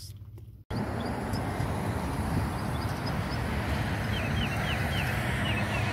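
Steady outdoor rushing noise with a low rumble, starting abruptly under a second in, and a small bird chirping a quick run of short notes from about four seconds in.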